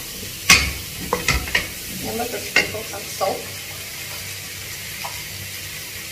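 Cherry tomatoes and yellow capsicum sizzling steadily in butter in a wok, with a wooden spatula stirring them and knocking against the pan several times. The knocks stop about halfway through, and only the sizzle goes on.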